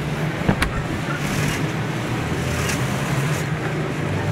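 Steady low machine hum of a sewing workshop, with soft rustling as hands handle and fold upholstery fabric. Two sharp knocks about half a second in.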